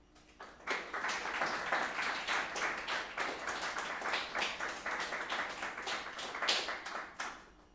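Audience applauding, starting just under a second in and dying away shortly before the end.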